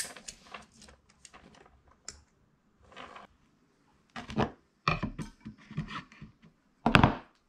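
Tools and parts being handled on a workbench: a tape measure and a shelf bracket are set down and moved about on a shelf board. They give scattered clicks, scrapes and knocks, and the loudest knock comes near the end.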